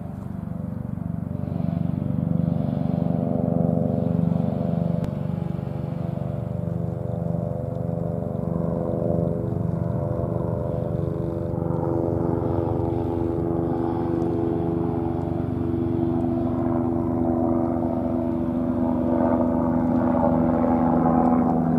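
Light helicopter flying overhead: a steady rotor beat with a droning engine note under it, growing louder near the end as it comes closer.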